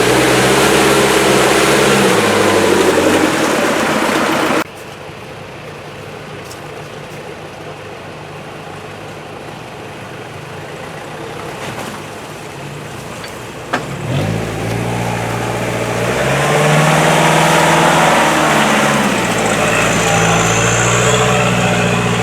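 Off-road 4x4's engine revving up and down under load, dropping suddenly to a much quieter, steadier engine hum about four and a half seconds in, then revving up and down again from about fourteen seconds on.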